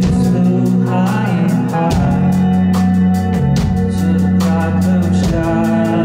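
Live rock band playing: a male lead vocal sings over acoustic guitar, drums with steady cymbal strokes, and sustained organ-like keyboard chords.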